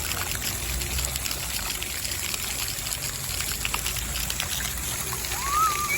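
Fountain water falling and splashing in a steady stream, pattering down onto whatever stands under it. Near the end comes a brief rising, wavering call.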